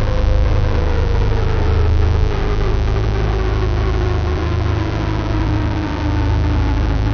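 Sunsetcore music track: a heavy, distorted, noisy drone with a tone that slowly falls in pitch.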